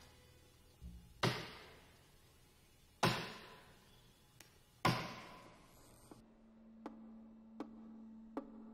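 An axe chopping into wood three times, about two seconds apart, each blow ringing out. Then a steady low hum with a faint tick about every three-quarters of a second.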